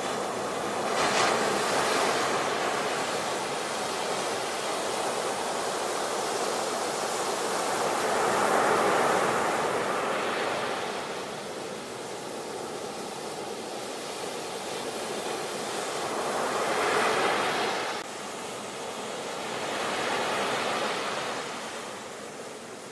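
Surf: small waves breaking and washing up a beach as a steady hiss that swells and eases off every few seconds, with four louder surges.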